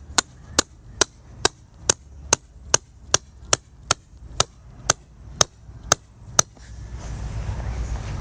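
Hammer driving tent stakes into the ground: about fifteen sharp, evenly spaced blows a little over two a second, stopping about six and a half seconds in.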